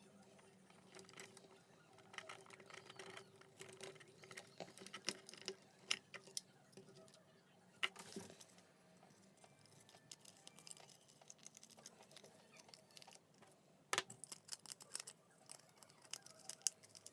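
Faint small clicks, taps and scratches of plastic parts and wire connectors being handled while an RC transmitter's wiring is reconnected, with a sharper click about eight seconds in and a quick run of clicks near the end, over a faint steady hum.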